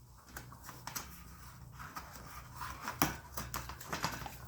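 Rubber bicycle tire and inner tube being handled and fitted onto a handcycle wheel: irregular small clicks and rustling, with one sharper click about three seconds in.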